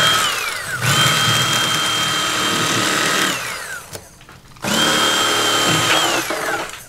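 Electric fillet knife running in three bursts as it cuts white bass fillets. Each burst is a steady motor whine that slides down in pitch as the motor spins down after the trigger is released, with short pauses between.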